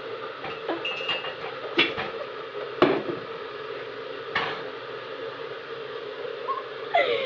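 A few sharp clinks and knocks of cups and kitchenware being handled while tea is made, over a steady hum.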